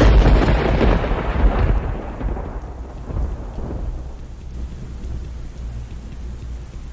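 A thunderclap that breaks suddenly and rumbles, fading over about three seconds, then steady rain with a low rumble underneath.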